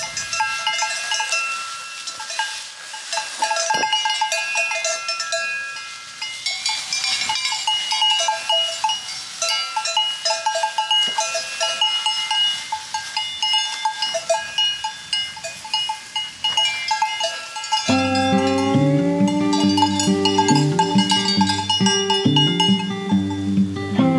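Cowbells on grazing cattle clanking irregularly. About eighteen seconds in, acoustic guitar music comes in over them.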